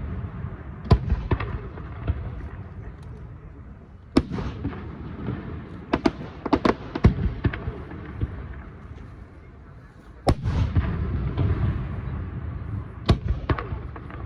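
Aerial fireworks shells bursting overhead: sharp booms every few seconds, with a rapid cluster of several bangs around the middle. The bigger bursts are followed by a low rolling rumble of echo.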